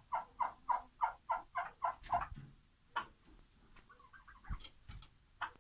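Chicken squawking in quick repeated calls, about four a second for two seconds, then softer short clucks, with a few sharp clicks in between.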